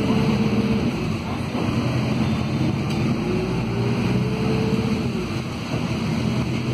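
Volvo B5RH hybrid city bus heard from a passenger seat while under way: a steady drivetrain and road rumble, with a whine that rises in pitch and levels off twice, once right at the start and again about three seconds in, as the bus pulls ahead.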